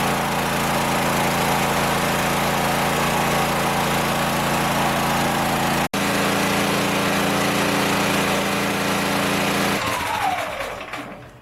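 Predator 8750 portable gas generator running steadily under load, with a momentary cut-out near the middle. Near the end it winds down, its pitch falling as the engine stops.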